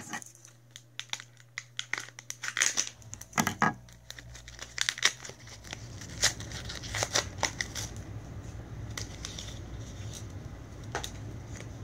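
Toy packaging of plastic and cardboard crinkling and crackling in hand as a Shopkins pack is opened. The crackles come in irregular clusters that thin out after the first half, over a low steady hum.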